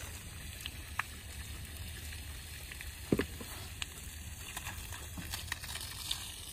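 Water spraying out of the open end of a solar-powered submersible pump's outlet pipe, a steady hiss over a low rumble, with a single knock about three seconds in.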